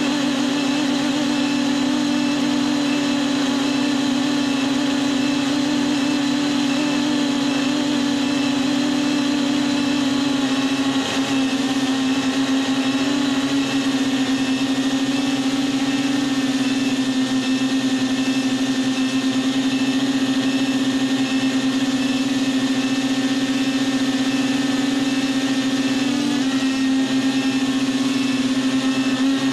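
Quadcopter drone's motors and propellers humming at a steady pitch, picked up by the drone's own onboard camera as it comes down low over the beach. The pitch wobbles briefly near the end.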